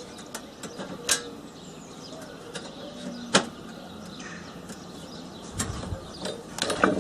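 A few scattered clicks and knocks of tools and metal being handled on a workbench. The sharpest comes about halfway through, with a quick cluster near the end.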